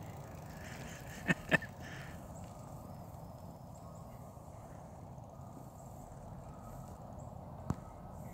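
Steady outdoor background hum with two sharp clicks close together about a second in and another single click near the end.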